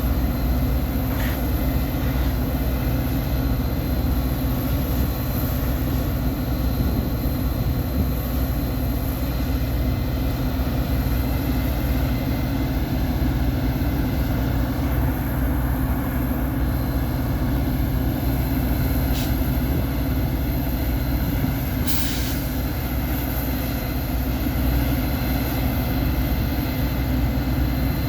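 Metra diesel locomotive running steadily with a low rumble. There is a short hiss about 22 seconds in and a couple of faint clicks.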